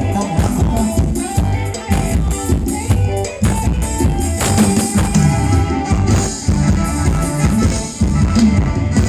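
Thai luk thung dance music from a live band over loudspeakers, a drum kit keeping a steady beat under the melody.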